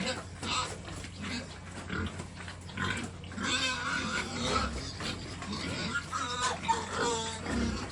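Pigs grunting and squealing, with wavering high squeals from about three seconds in.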